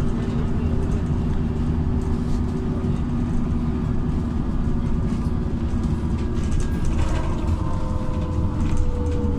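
Inside a LiAZ 5292.67 city bus under way: a steady low drone of its YaMZ-53624 natural-gas engine and tyres on the road, with light rattles. From about seven seconds in a faint whine slowly falls in pitch.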